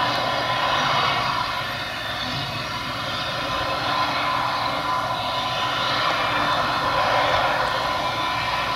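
Claas Jaguar 950 forage harvester running under load as it picks up and chops swathed grass, a steady engine drone with a thin steady whine through it.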